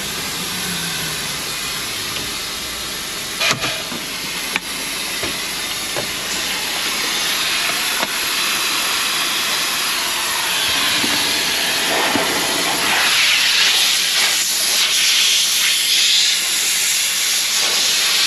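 Compressed air hissing steadily out of the burst coiled air-gun hose on a Scania truck's air system. The hiss grows louder in the second half as the hose is handled, with a couple of clicks a few seconds in, and cuts off suddenly at the end.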